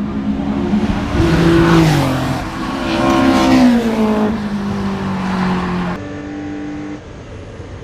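Race car engine, the Porsche 964's air-cooled flat-six, running hard at racing speed. Its pitch climbs and falls several times as it works through the gears, and it drops lower near the end.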